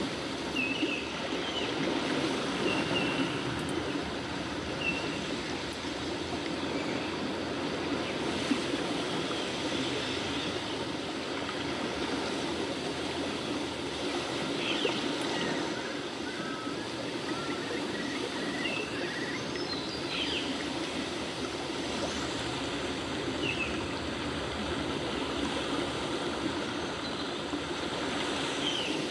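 Steady sound of running water, like a stream, with short high chirps now and then.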